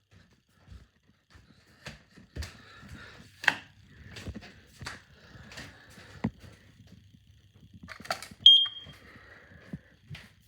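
Smoke alarm giving one short, high-pitched beep about eight and a half seconds in, among scattered clicks and knocks.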